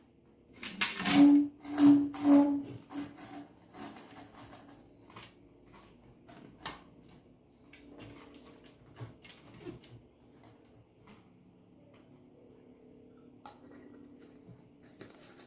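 Handling of plastic pipe, fittings and glue cans: a few short squeals in the first three seconds, then faint scattered clicks and taps.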